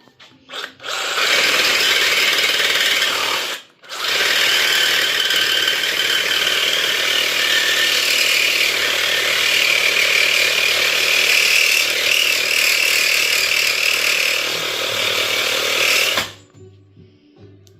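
Power grinder working metal. It runs in two stretches: a short burst, a brief stop just under four seconds in, then about twelve seconds more before it cuts off. It is being used to cut down welded-on metal on a bike frame.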